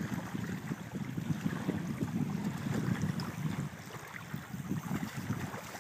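Wind rumbling on the microphone over small waves lapping at the lake's edge, with irregular little splashes and gusts.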